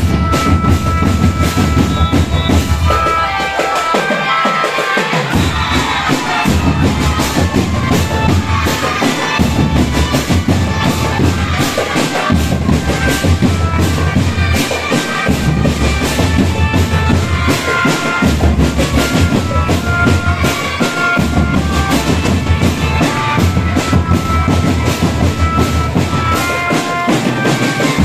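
Indonesian marching drum band playing: dense marching drums and bass drum beating under a bright, stepping melody, with the low drums dropping out briefly a few times.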